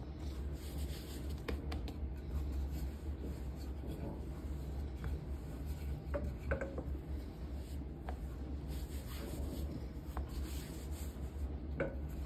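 Wooden rolling pin rolling over floured dough on a countertop, with hands rubbing and pressing the dough, a few light knocks, and a steady low hum underneath.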